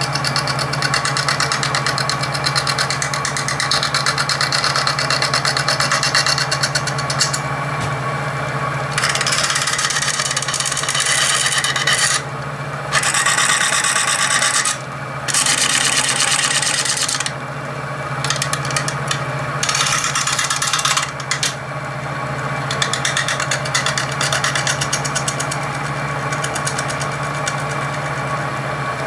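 Lathe running with a steady hum while a spindle gouge cuts down cured JB Weld epoxy filled into the lathe's step pulley, a fast rasping chatter. The scraping breaks off for a moment several times around the middle as the tool lifts away.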